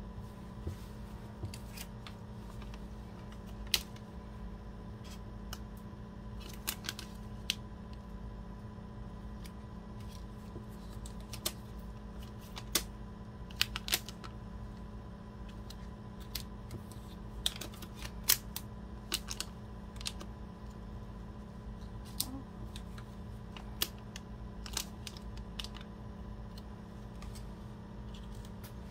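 Irregular sharp clicks and crinkles from gloved hands handling a foil sample pouch and a plastic syringe, scattered throughout and sometimes in quick clusters, over a steady low hum.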